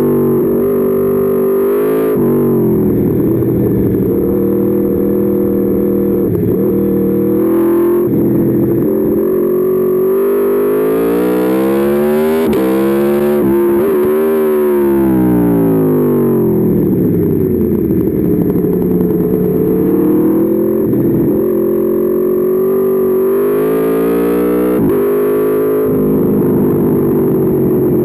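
Aprilia Tuono V4's V4 engine heard onboard, its note repeatedly rising as the bike accelerates and falling as it slows, with one long climb about halfway through that drops away quickly.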